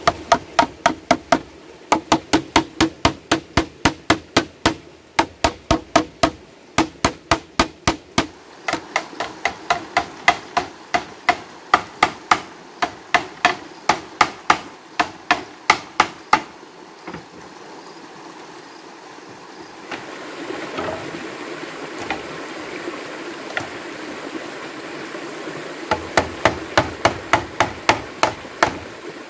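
Rapid, even hammer blows on hollow bamboo, about three a second, knocking rungs into a drilled bamboo chair frame. The blows stop for several seconds past the middle, leaving the steady rush of a stream, and start again near the end.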